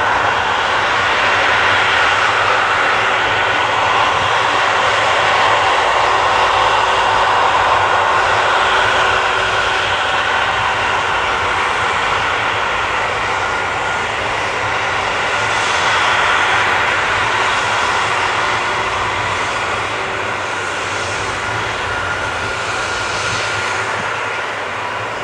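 Twin turbofan jet engines of a Boeing 777 running at low taxi thrust as the airliner turns and rolls, a steady whine with a faint held tone, easing off slightly near the end.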